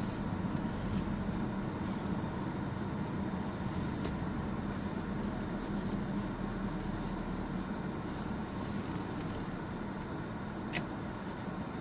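Truck engine idling steadily, with a couple of faint clicks.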